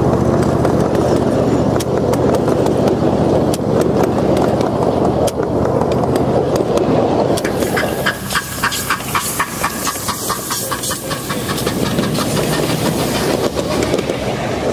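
Miniature ridable trains rolling past at rail level. A low running rumble with wheels clicking over the rail joints comes first. About halfway through it gives way to a steam-locomotive train: a hiss with a rapid, regular clickety-clack of wheels.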